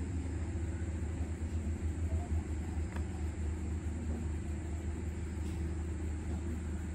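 A steady low background rumble, unchanging throughout.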